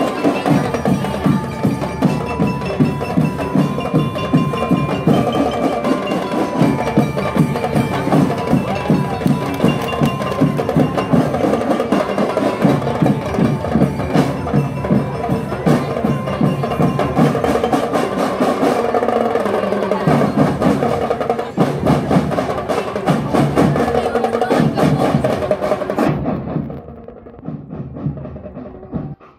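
Elementary school drum and lyre band playing: marching drums beat a steady rhythm while bell lyres carry a bright melody. The music drops away sharply near the end.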